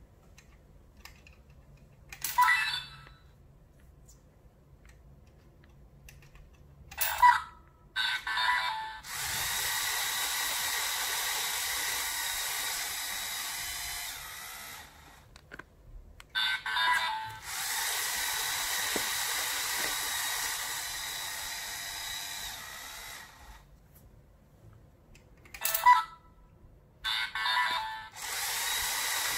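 LEGO EV3 large motor driving the slot-machine reels through their gearing, a steady mechanical whirr with a constant whine, running for about six seconds at a time, three times. Short loud bursts come between the runs.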